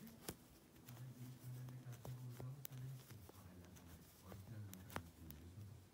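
Faint clicks and taps of 3.5 mm metal knitting needles working garter stitch, with a sharper click about a third of a second in and another about five seconds in.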